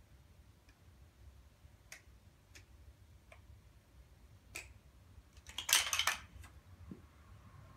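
Large plastic building blocks clicking and clacking as a small child handles and stacks them: a few single clicks, then a louder short clatter of several clacks about three-quarters of the way in.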